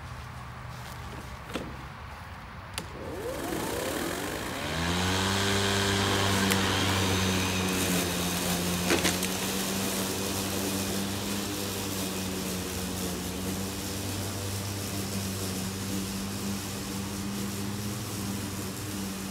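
EGO Select Cut XP battery-powered self-propelled mower starting up: after a couple of clicks its motor and dual blades spin up with a rising whine about three seconds in. It then settles into a steady hum while cutting month-long wet St. Augustine grass, growing a little softer as it moves away.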